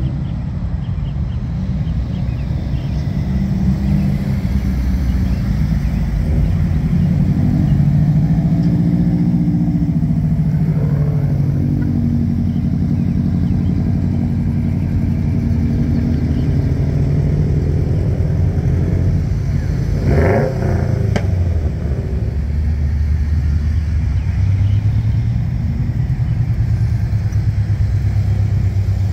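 Several cars driving slowly past one after another, their engine sounds swelling and fading as each goes by, with a quick engine blip about twenty seconds in.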